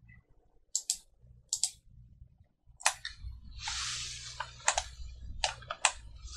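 Computer mouse clicking: two quick double-clicks, then single clicks, with a second of soft rustling noise in the middle.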